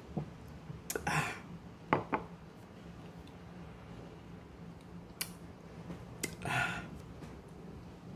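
Close-up mouth and breath sounds from a person pausing between bites: a few small clicks and two short breathy hisses, one about a second in and one near six seconds in.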